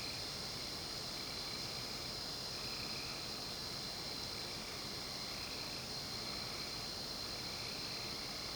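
Night insect chorus: a steady high buzz, with a softer repeating call coming back about once a second.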